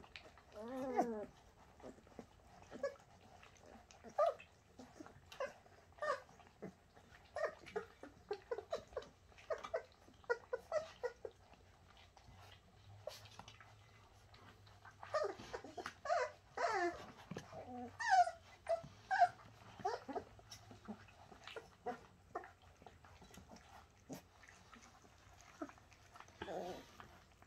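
Bernese Mountain Dog puppies whining and squeaking as they mouth and wrestle with each other, in many short calls that rise and fall in pitch, busiest about halfway through.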